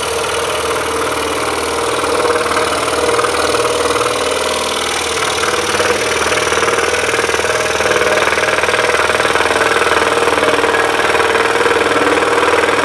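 Axminster Trade scroll saw running steadily, its thin reciprocating blade cutting through a deep block of pine.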